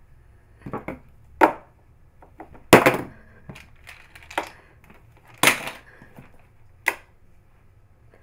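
Loose papers rustling and light knocks on a countertop as a hand nudges a cat lying on the sheets. About six short, sharp sounds come at irregular gaps, the loudest about three seconds in.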